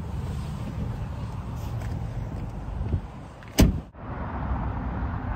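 A car door being shut, one loud thud about three and a half seconds in, over a steady low outdoor rumble of wind and traffic.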